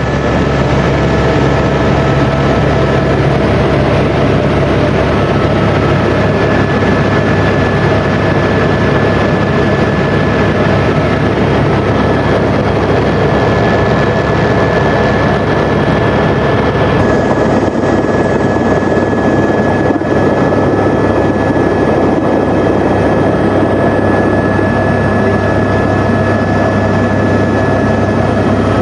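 Helicopter engine and rotor running steadily and loudly: a constant low drone under a steady high whine, with a slight change in tone about seventeen seconds in.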